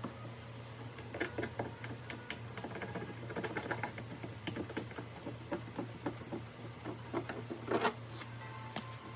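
Irregular light clicking and tapping, thickest through the middle and loudest near the end, over faint background music.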